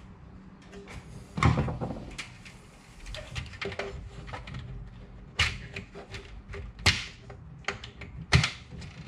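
Plastic under-cupboard strip light being pushed up and clipped into its mounting brackets: a series of separate sharp clicks and knocks with handling rustle between them.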